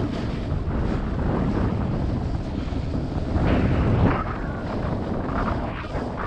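Wind rushing and buffeting over an action camera's microphone as a snowboard runs down a packed piste, with the board's edge scraping over the snow, louder in stretches about midway and near the end as it turns.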